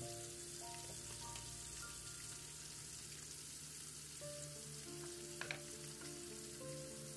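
Fish steaks shallow-frying in oil in a frying pan, a steady sizzle, with soft background music playing a slow melody. A brief clink about five and a half seconds in.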